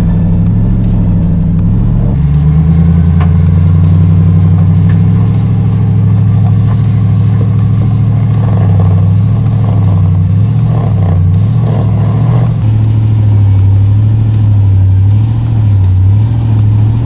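Ram TRX's supercharged V8 running hard under load as the truck climbs a steep rock obstacle, the revs rising and falling repeatedly near the end as the driver works the throttle.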